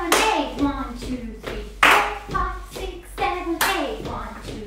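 Sharp hand claps, one about every second and three quarters, keeping time for a solo jazz dance step, with a voice singing the rhythm without words between the claps.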